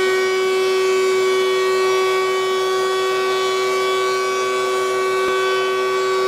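DeWalt two-speed benchtop thickness planer running with a loud, steady high-pitched whine as a board feeds through it.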